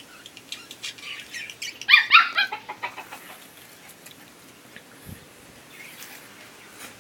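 Puppy squealing in a quick run of high-pitched yelps, loudest about two seconds in, then falling quiet.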